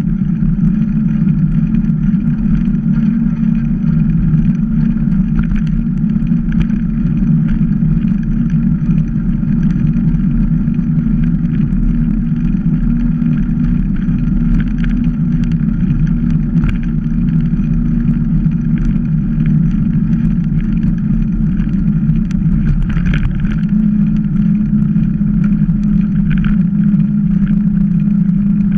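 Steady, muffled rumble of wind and tyre noise on the microphone of a camera riding on a mountain bike as it rolls along an asphalt lane. There are no breaks or strong changes.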